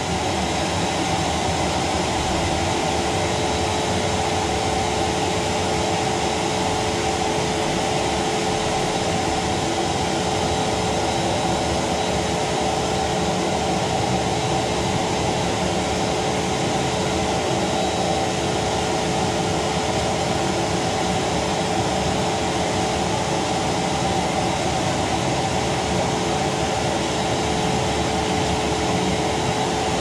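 Rowenta vacuum cleaner running at a steady pitch: an even rush of suction air over a constant hum.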